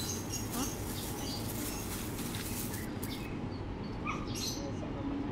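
A dog whimpering over steady outdoor background noise, with short high bird chirps.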